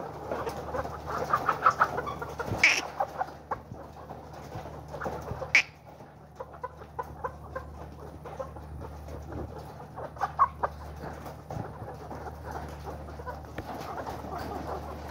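A shed full of caged 15-week-old Bovans White pullets clucking and chattering in many short overlapping calls, with two sharper, louder sounds about three and six seconds in, over a steady low hum.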